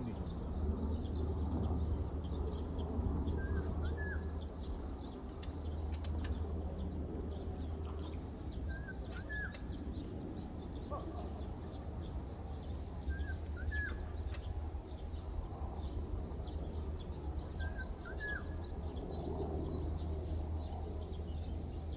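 A bird repeats a short two-note chirp about every four to five seconds over a steady low rumble of outdoor background noise, with a few faint clicks.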